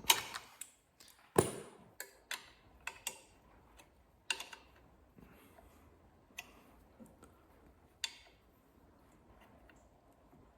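Hand tools clicking and knocking on a metal motorcycle light bracket while its bolts are tightened: about a dozen sharp clicks at uneven intervals, the loudest near the start and about a second and a half in, fewer and fainter after about eight seconds.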